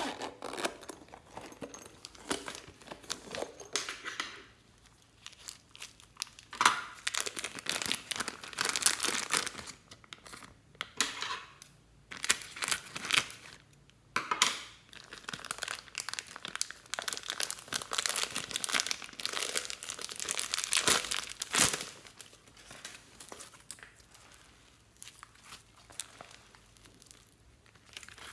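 Plastic handling sounds: a zipper on a silicone case pulled open at the start, then a plastic zip-lock bag of fluffy slime crinkling and rustling in irregular bursts. The sounds fall to faint, soft slime handling for the last several seconds.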